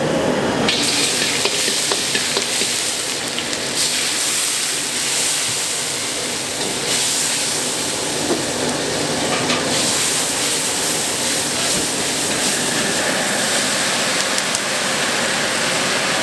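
Stir-frying in a wok over a gas wok burner: food and oil sizzling over the burner's steady rushing noise, with scattered clicks of the metal ladle against the wok.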